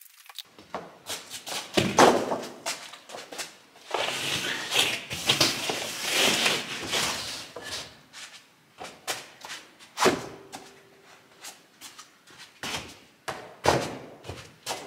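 Heavy rubber stable mats handled on a concrete floor: a heavy thud about two seconds in, a few seconds of scraping as a mat is dragged into place, then more thuds and knocks as it drops and is settled.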